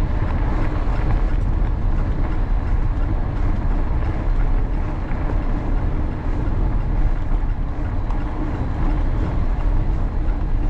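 Steady wind buffeting on the bike-mounted camera's microphone over the rumble of mountain-bike tyres rolling along a muddy towpath.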